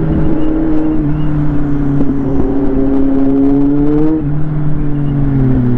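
Inline-four sport motorcycle engine pulling steadily on the road, its pitch rising slightly. A little after four seconds in the note drops abruptly, then falls slowly.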